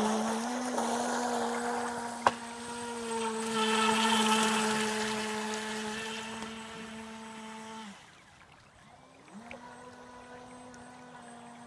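Feilun FT012 RC speedboat's brushless electric motor whining at a steady pitch, fading as the boat runs away up the creek. There is one sharp click about two seconds in. The whine cuts out near eight seconds and comes back on about a second and a half later with a short rising pitch as the throttle is opened again.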